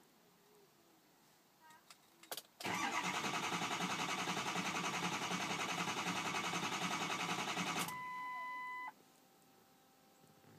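2004 Ford 6.0 Powerstroke V8 diesel cranking on its starter with an even pulsing beat for about five seconds, not catching: the no-start. As the cranking stops, a steady electronic beep sounds for about a second.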